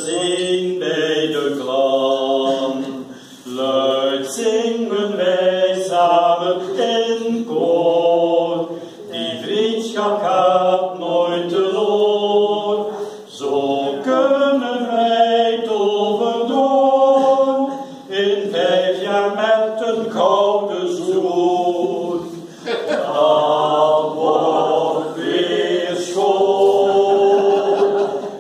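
A small group of men and women singing a song together in unison, with no instruments audible, in phrases of a few seconds with short breaths between them.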